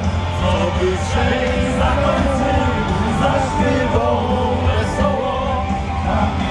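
Loud amplified music with a singing voice over a steady, heavy bass.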